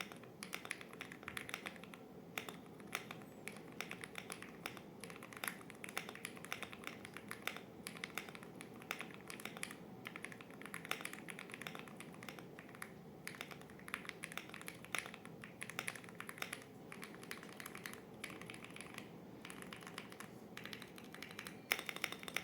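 Typing on an Ateart X21 mechanical keyboard fitted with stock, factory-lubed Gateron Smoothie linear switches with POM housings and stems: a steady stream of quick keystrokes, a little louder near the end.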